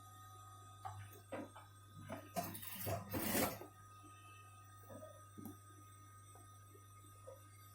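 Handling noise over a steady low hum: a few light knocks, then a brief scraping rustle about two and a half seconds in, and faint clicks after it.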